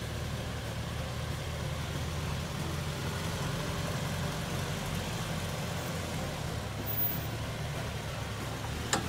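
Lifted Toyota Land Cruiser Prado's engine running steadily at low, idle-like revs as the truck crawls slowly over a rutted dirt track. A short sharp click near the end.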